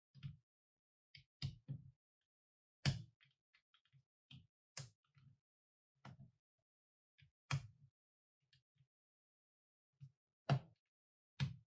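Plastic building bricks being pressed onto a baseplate and handled with gloved fingers: a scattering of irregular clicks and soft knocks, a few of them sharper snaps.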